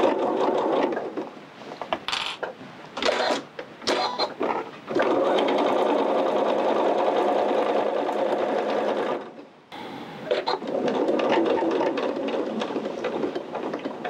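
Elna 770 sewing machine stitching through cotton fleece in short stop-start runs, then running steadily, with a brief stop about two-thirds of the way through: slow sewing around a curved seam with pauses to readjust the fabric.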